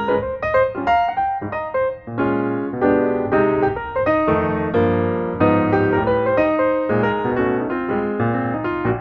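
Background piano music: a run of notes played over a steady bass line.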